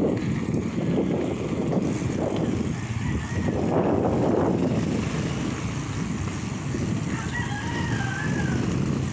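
Wind buffeting the microphone of a moving bicycle, with a rooster crowing faintly in the background: a short call about three seconds in and a longer, wavering crow near the end.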